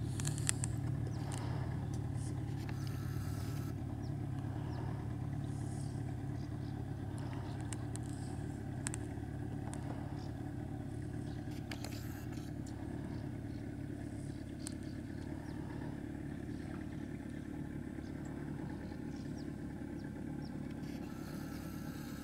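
Yamaha outboard motor on a small boat running steadily, a constant low drone with no revving, with a few light clicks and knocks.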